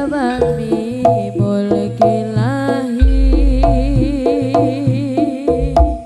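Live Javanese jaranan music: a gamelan ensemble with repeated hand-drum strokes under a continuous wavering melody line, and a deep low stroke about three seconds in.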